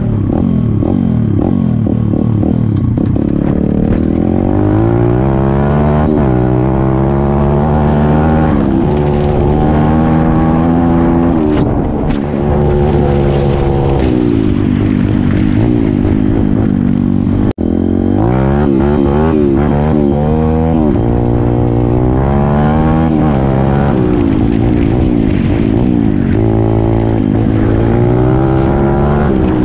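Pit bike engine revving under the rider, its pitch climbing and dropping back again and again as the gears change. The sound cuts out for an instant a little past halfway.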